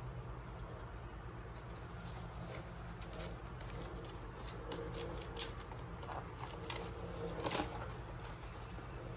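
Sun conures shifting about in a plastic basket: scattered soft clicks and scratches of claws and beaks on the plastic and bedding, with a few sharper clicks in the second half, over a faint low hum.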